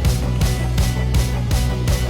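Loud rock background music: distorted guitar and bass over a steady drum beat of about three strokes a second.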